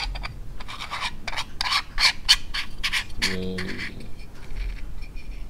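A 52 mm lens filter being twisted onto the threaded adapter ring of a metal GoPro cage: a quick run of short scrapes and rubs from the threads and fingers, easing off after about three seconds.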